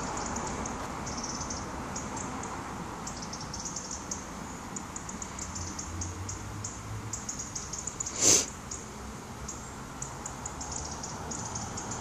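Small birds chirping in quick, short, high notes throughout, over faint outdoor background noise, with one sharp, loud noise about eight seconds in.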